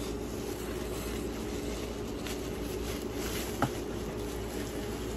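Faint rustling and crinkling of a plastic bubble-wrap bag being handled and opened, with one sharper click a little past halfway, over a steady low hum.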